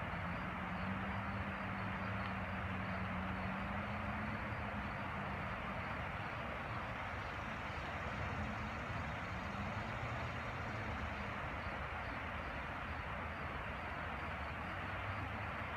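River rapids rushing over rocks: a steady wash of moving water. Under it runs a low, steady hum that wavers and fades out about ten seconds in.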